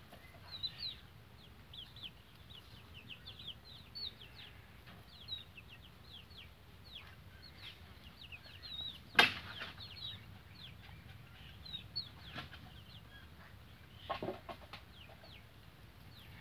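Baby chicks peeping: a steady string of short, high, downward chirps, several a second, with a sharp knock about nine seconds in and a few more knocks around fourteen seconds.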